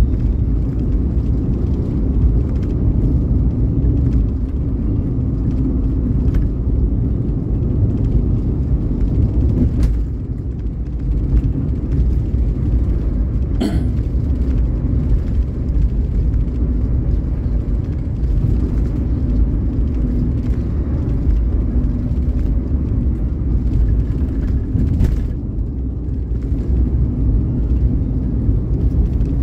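Steady low rumble of a vehicle travelling along a road: engine, tyre and wind noise, with a few brief knocks and clicks over it.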